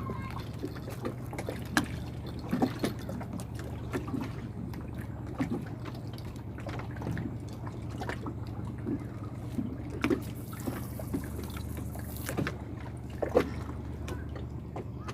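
Water trickling and lightly splashing, with scattered short knocks, over a steady low hum.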